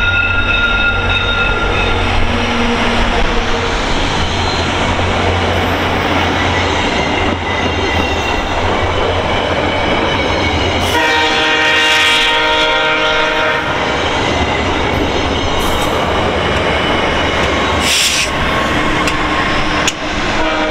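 VIA Rail passenger train passing close by. The leading F40PH-2D diesel locomotive runs past at the start, followed by a line of LRC coaches with steady wheel-and-rail noise, and the trailing P42DC locomotive near the end. About halfway a multi-tone horn comes in and holds through the rest.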